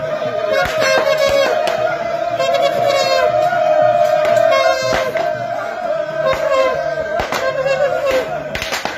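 Traditional Igbo festival music played live: a sustained, wavering melody line over sharp percussion strikes and a pulsing low beat.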